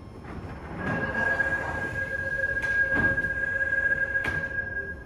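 Seoul Subway Line 1 electric train drawing to a stop, its brakes squealing in one steady high note for about four seconds, with a few clunks. The squeal cuts off as the train halts.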